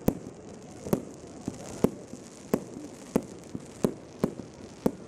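Display fireworks exploding: a rapid string of sharp bangs, roughly one every half-second to second, with a few fainter pops between them.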